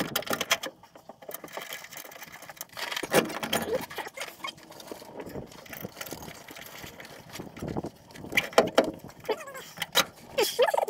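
Scattered clicks, taps and rustles of hands working on the metal fittings and fuel lines of an aftermarket FASS fuel pump mounted under a truck's frame.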